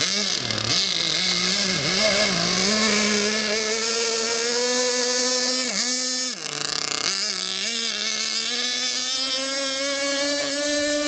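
Two-stroke .21 nitro engine of a radio-controlled racing boat running at speed, its pitch wavering. About six seconds in the pitch drops briefly, then climbs back and keeps rising toward the end.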